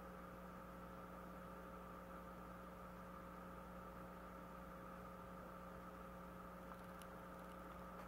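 Near silence: a faint, steady electrical hum under a low hiss.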